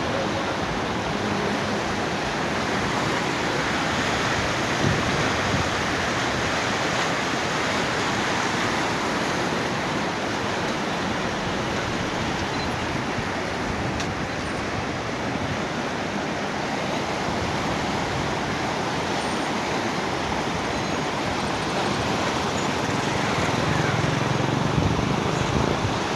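River in flood rushing steadily, a loud, even roar of fast water.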